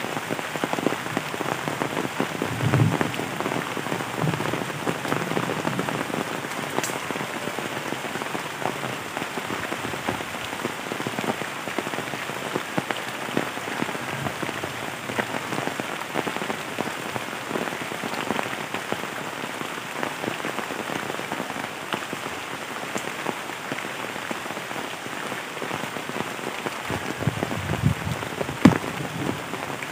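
Steady heavy rain pattering on leaves, bamboo and leaf-littered ground, a dense patter of drops. A few low thumps come about three seconds in and again near the end.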